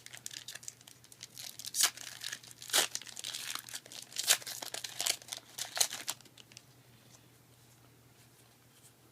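Foil booster pack wrapper crinkling and tearing open in sharp crackles, stopping about six seconds in.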